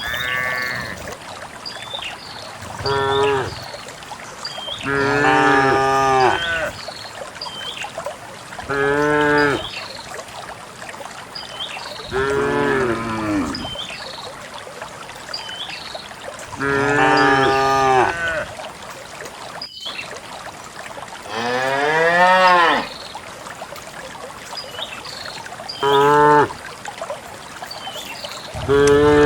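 Cattle mooing: about eight long calls a few seconds apart, several falling in pitch as they end.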